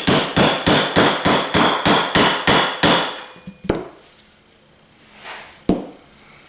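Hammer blows on a Torx bit driver used as a punch to tap the center piece out of a boiler pump motor, about three blows a second with a high metallic ring. The run of blows stops about three seconds in, followed by two single blows.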